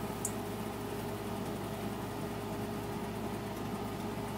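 Battered broccoli florets frying in hot oil in a pan, a steady low sizzle with a faint hum underneath. A single light click comes just after the start.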